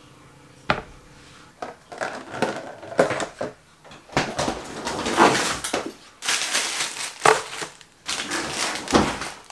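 Kitchen items handled and set down on a wooden cutting board: a few sharp knocks among crinkling and rustling of plastic packaging, busiest in the second half.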